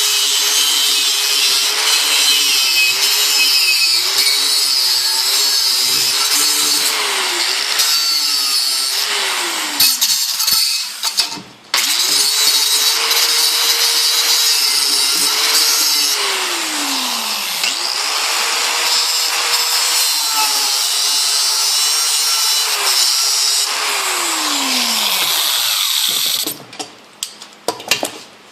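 Electric grinder grinding a metal part: a harsh, steady grinding hiss over the motor's whine, which sags each time the wheel is pressed into the work. The motor winds down about ten seconds in and starts again a couple of seconds later. It dips briefly midway, winds down again near the end, and a few light clatters follow.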